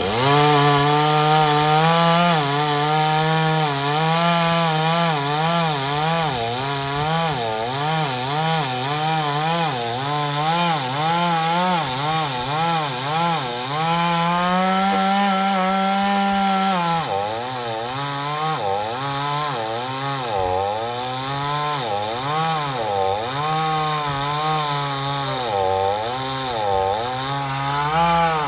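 Chainsaw cutting into wood, its engine pitch rising and falling about once a second as the cut loads and frees it. For a few seconds past the middle it holds a steadier, higher pitch, then drops and goes back to wavering.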